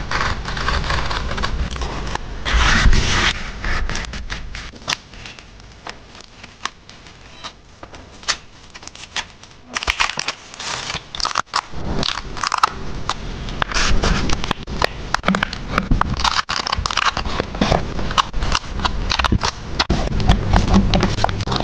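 Paper and stickers handled close up for a journal collage: irregular crinkling, scraping and light clicks. Louder in the first three seconds, softer for a stretch, then busier again from about ten seconds in.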